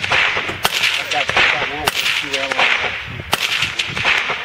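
Rifle shots fired at steel targets: three sharp cracks, a little over a second apart.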